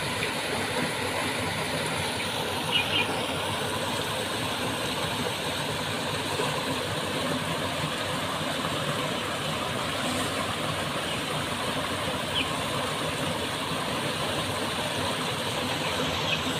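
Small garden waterfall cascading over rocks into a koi pond: a steady rush of splashing water.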